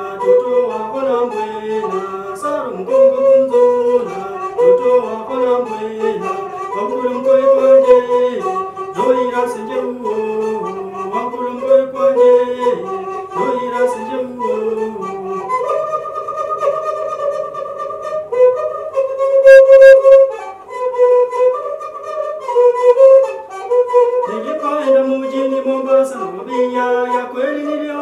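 A shiriri (zeze), a one-string fiddle with a gourd resonator, bowed in a repeating melody while the player sings along. A long held note comes a little past halfway.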